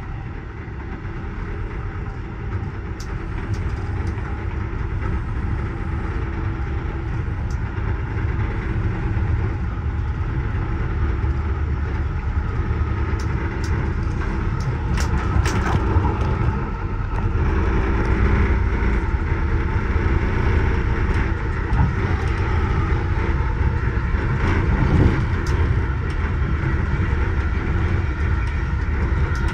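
Amtrak Amfleet passenger coach running at speed, heard from inside its rear vestibule: a steady rumble of wheels and car body on the rails with a few light clicks and rattles, growing gradually louder.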